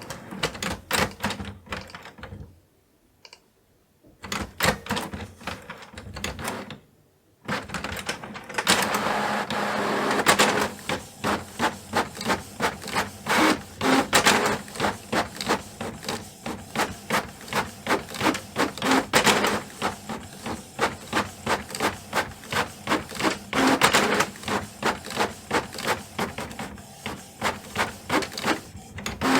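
Canon printer printing: a few mechanical clicks that stop twice in the first several seconds, then settle into a quick, even rhythm of clacks, about two to three a second, over a steady hum.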